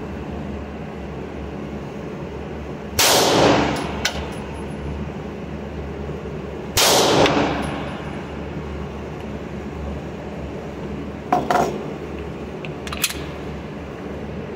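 Canik METE SFx 9mm pistol fired twice, about four seconds apart, each shot a sharp crack with a ringing echo in the indoor range booth. Two fainter sharp clicks follow near the end.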